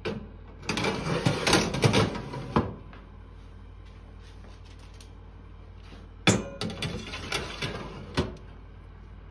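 Metal baking trays sliding along the oven's wire rack runners, scraping and clattering in two bursts. The first starts about a second in and lasts about two seconds. The second starts with a sharp knock about six seconds in and ends with another knock as the tray is pushed home.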